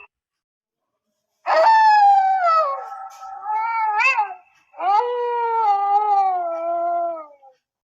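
Wolf howling: two long howls, the first starting about a second and a half in and ending with a brief upward swoop, the second slowly falling in pitch until it fades near the end.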